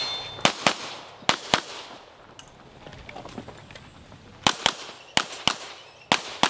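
Pistol shots fired in quick pairs (double taps) by a competitor running a USPSA stage, each pair a fraction of a second apart. Two pairs come in the first second and a half, then a pause of nearly three seconds, then three more pairs in quick succession.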